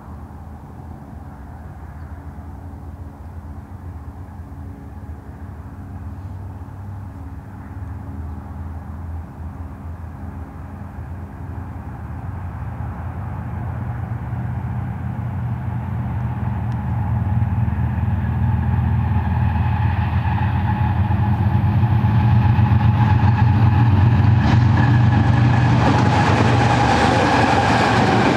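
GE ES44C4 diesel locomotives at the head of a double-stack container train approaching, their low engine drone growing steadily louder. Over the last few seconds the rattle and clatter of steel wheels on the rails joins in as the locomotives and well cars go by.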